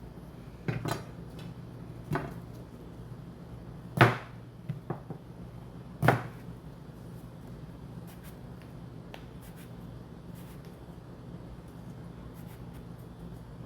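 Kitchen things knocked and set down on a counter: five or six separate sharp knocks, the loudest about four seconds in, none after about six seconds, over a steady low hum.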